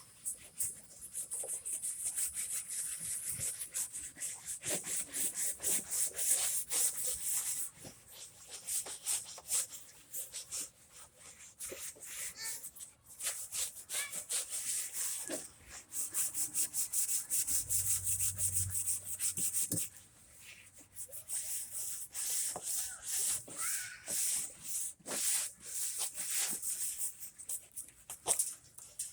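Hand sanding of a wooden subwoofer box: quick back-and-forth strokes of sandpaper on wood, in stretches of several seconds with short pauses between.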